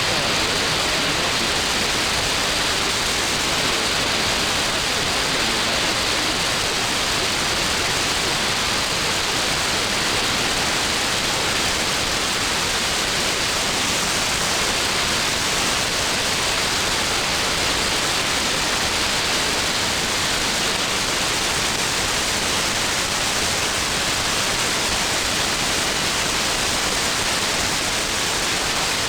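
Steady shortwave receiver hiss and static with no programme audio, as the pirate station's signal fades out on the band.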